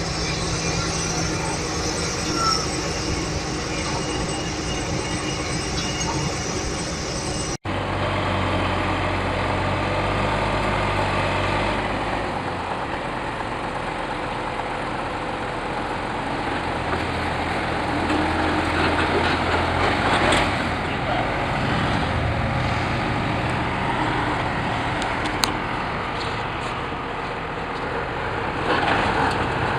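Heavy diesel construction machinery running, a steady engine rumble with mechanical clatter and noise. A sudden break about seven and a half seconds in, after which a different machine's rumble carries on.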